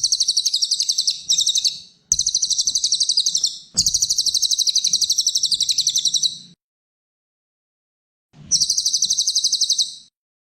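A cililin songbird singing: rapid trills of evenly repeated high notes, about ten a second, in four bursts of one and a half to three seconds with short silent gaps between them.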